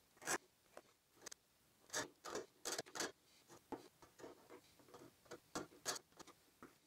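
Hand-pushed wood chisel paring the end of a router-cut mortise square: a string of short, irregularly spaced clicks and scrapes as the edge cuts into the wood.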